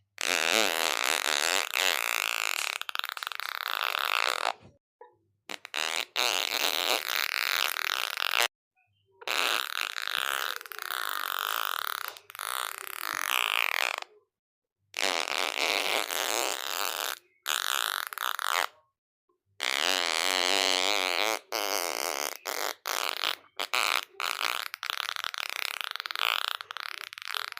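A series of long fart sounds, the pitch wavering within each, broken off several times by sudden cuts to silence.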